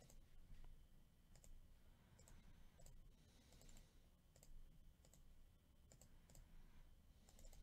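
Faint computer mouse clicks, a few scattered single clicks against near silence.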